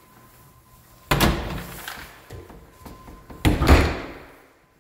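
Interior door being handled and shut: two sudden loud knocks about two and a half seconds apart, the second the louder.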